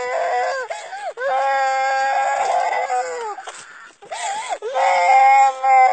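A young child crying in long, high-pitched wails. One wail is held for about two seconds, and the crying breaks off briefly about two-thirds of the way through before starting again.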